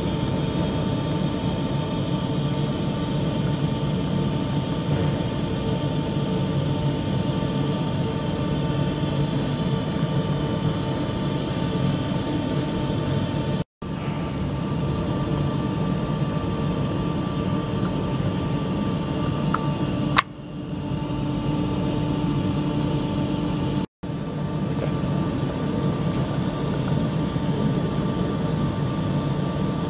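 Volvo FH12's diesel engine running steadily, heard close up at the air dryer's unloader valve. About two-thirds of the way through a sharp click is followed by a drop in level that builds back over a couple of seconds, and the sound cuts out for an instant twice.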